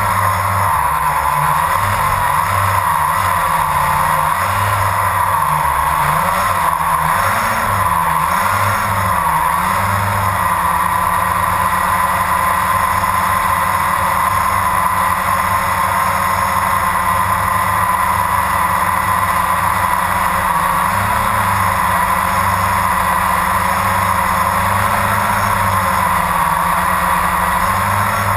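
Electric motors and propellers of a QX3 quadcopter, heard from its onboard camera: a steady buzzing whine whose pitch wavers over the first ten seconds as it climbs, then holds steadier while it hovers.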